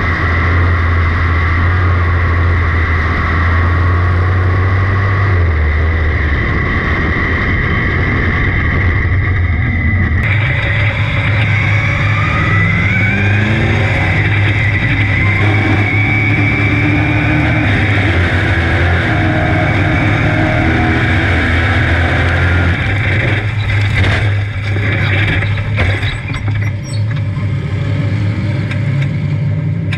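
Onboard sound of a 602 sportsman dirt modified's GM 602 crate V8 running on track, its pitch climbing as the car accelerates a little under halfway through. A run of sharp knocks and clatter comes near the end.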